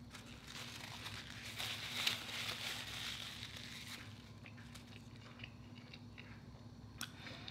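Quiet close-miked chewing of a mouthful of cheeseburger slider: soft, wet mouth sounds with small irregular clicks, busiest in the first half and thinning out after.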